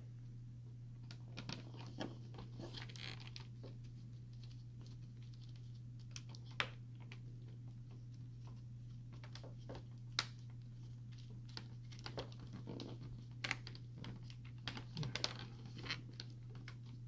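Scattered small clicks, taps and scrapes of hands and a small Phillips screwdriver working a laptop's plastic screen bezel and its screws, with a couple of sharper clicks. A steady low hum runs underneath.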